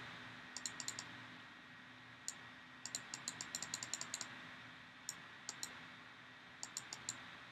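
Faint computer mouse clicks, single and in quick runs of several a second, loudest in a run about three to four seconds in, over a faint steady hum.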